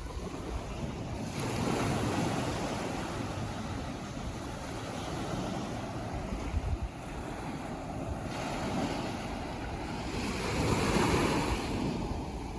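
Ocean surf washing in: a wave surges about a second and a half in and a louder one breaks near the end, over steady wash. Wind buffets the microphone with a low rumble.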